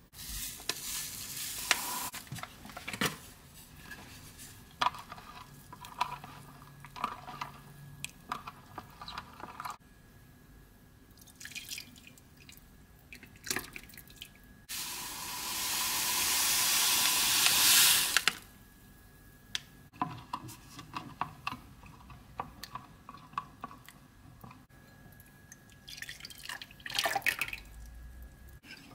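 Liquid jelly mixture pouring in a stream into a bowl for about three and a half seconds, getting louder as it goes and stopping suddenly, amid scattered light clicks and taps.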